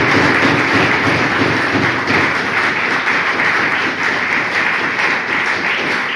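An audience applauding with dense, steady clapping that eases off a little near the end.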